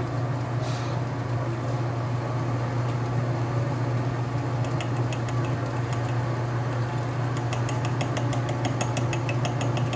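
Atlas lathe set up for milling, running steadily with a low hum as a gear cutter works into a bevel gear blank. About halfway through, a regular light ticking of the cutter teeth biting the metal joins the hum, about five ticks a second.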